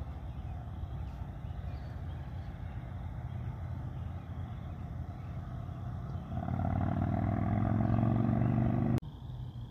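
Freight train rolling slowly away, a steady low rumble. About six seconds in a louder engine sound joins, its pitch rising gently as it accelerates, then everything cuts off suddenly near the end.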